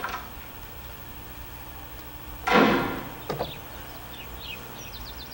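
A door banging shut about two and a half seconds in, followed by a smaller knock, then birds chirping. It is a film soundtrack played through cinema speakers and picked up by a camcorder.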